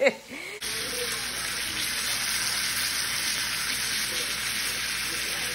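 Seasoned chuck roast searing in hot olive oil in a pan: a steady sizzle that starts suddenly about half a second in.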